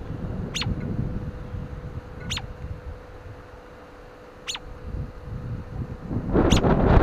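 A songbird giving four short, sharp calls that sweep steeply down in pitch, about two seconds apart. Wind rumbles on the microphone, easing in the middle and gusting up strongly near the end.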